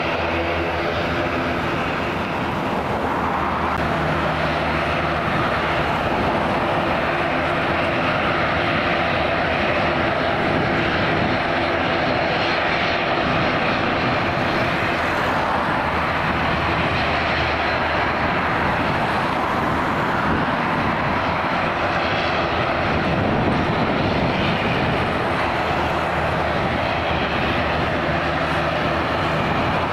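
Airliner engines running at high power: first a Swiss Airbus A220's twin Pratt & Whitney geared turbofans on its takeoff roll, then an ATR 72's two turboprop engines and six-bladed propellers as it moves along the runway. A steady, loud engine noise with a low hum of several tones underneath.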